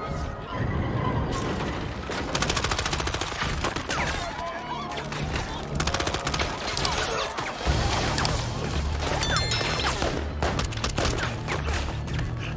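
Movie gunfight: rapid, sustained bursts of gunfire with many shots a second, some of them automatic. A low pulsing music score comes in underneath a little past halfway.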